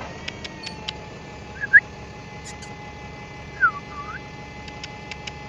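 A person whistling to a fox: a quick rising whistle, then two short dipping whistles, with a few soft clicks near the start and near the end.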